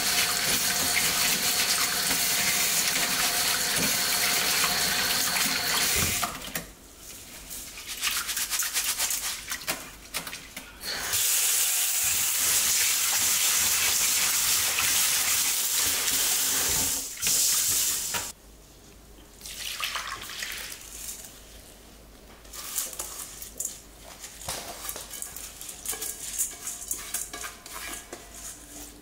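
Water running from a tap in two long spells, the first stopping about six seconds in and the second running from about eleven to seventeen seconds, with quieter stretches of small knocks and brief splashes in between.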